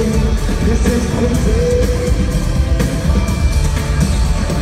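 Loud pop dance music played live over a concert sound system, with heavy bass and a wavering melody line.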